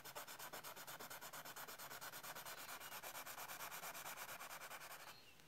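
White Conté crayon rubbed onto tan board in quick, even back-and-forth strokes, a faint scratchy rubbing that stops near the end.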